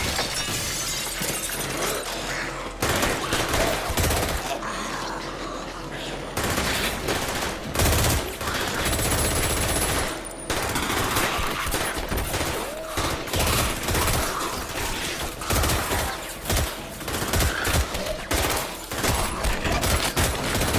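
Heavy gunfire: many shots fired in rapid, irregular volleys, with bursts of automatic fire.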